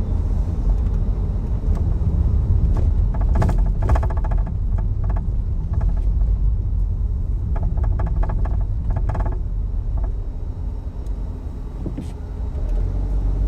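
Car cabin rumble while driving slowly over a parking lot, heard from the front passenger footwell, with several short bursts of rapid clicking or rattling in the middle: the intermittent noise the driver is trying to track down.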